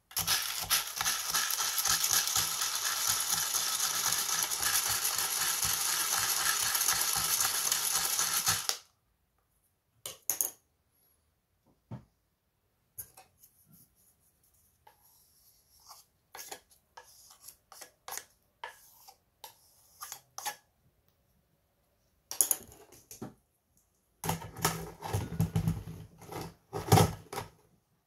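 A hot-air popcorn maker runs with roasting coffee beans rattling in its chamber, then cuts off about nine seconds in. Scattered clinks follow as the roasted beans are tipped into a ceramic bowl. Near the end there is a short rattling stretch as the beans are handled in a wire-mesh sieve.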